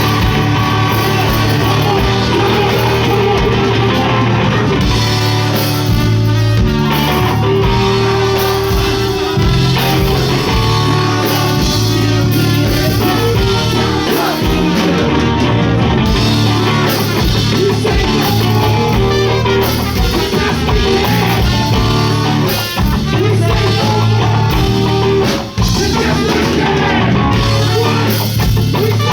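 Live rock music played loudly by a band, with drum kit and guitar.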